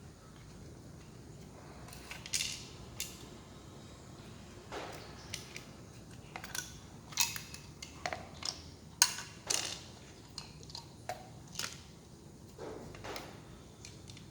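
Irregular small clicks, taps and clatters of the plastic and metal parts of a 12 V cordless drill/screwdriver being handled during disassembly.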